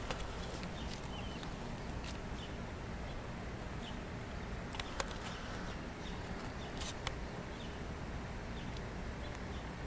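A dog's metal chain collar clinking in a few short, sharp clicks as the dog moves its head while sniffing, with pairs of clicks about five and seven seconds in, the loudest at five. Under it is a steady low outdoor background noise.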